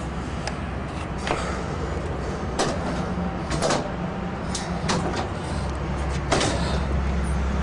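Steel pry bar levering at the lock of an Xpanda steel security gate in a forced-entry test: a series of irregular sharp metal knocks and scrapes, the loudest about six seconds in, over a steady low hum.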